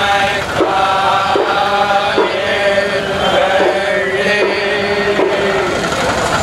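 A group of men chanting in unison, a Vaishnava temple recitation, phrase following phrase in a steady cadence.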